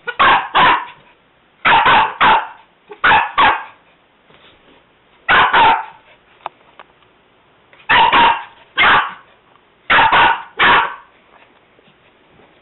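Black Pomeranian barking in quick pairs and threes, about six bursts spaced a second or two apart.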